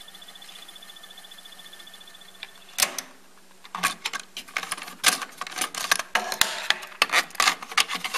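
Akai CS-M40R cassette deck: a faint steady whir as the transport winds tape, then a loud clunk of the mechanism just before three seconds in. This is followed by a rapid run of plastic clicks and clacks as a cassette is handled and pulled from the open cassette holder.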